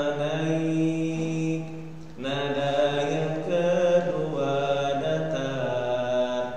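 A man's voice chanting Qur'anic recitation in a melodic style, holding long sustained notes with a short breath pause about two seconds in. It demonstrates the nada mina pattern of Qur'an recitation (rising, level, slanting, rising).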